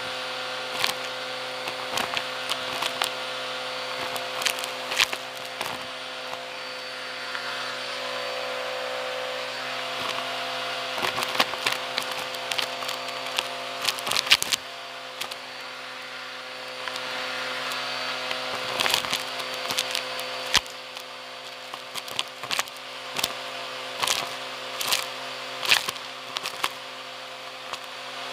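Vacuum cleaner running with a steady hum as its nozzle sucks up a pile of dust, fluff and crunchy debris, with clusters of sharp crackles and rattles as bits are pulled into the tube.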